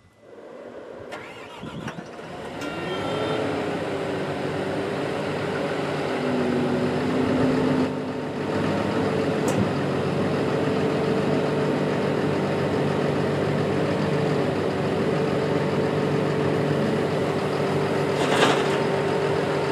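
Caterpillar D6N bulldozer's diesel engine being started: it cranks, catches and rises in pitch within the first three seconds, then settles into a steady idle as the blade is worked on its hydraulics. A short burst of noise near the end is the loudest moment.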